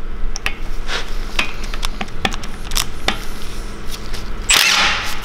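Metal tools and parts clicking and knocking as they are handled, then near the end a short burst from an impact gun undoing the cap on a BMW S54 Vanos helical gear shaft.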